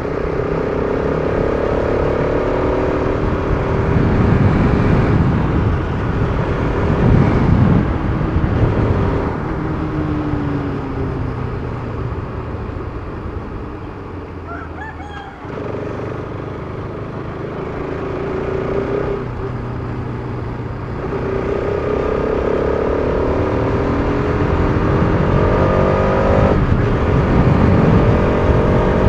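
Bajaj Pulsar RS200's single-cylinder engine pulling hard while riding, its revs climbing in repeated rises broken by gear changes. It eases off about halfway through, then pulls up through the revs again. A rooster crows briefly while the engine is quieter near the middle.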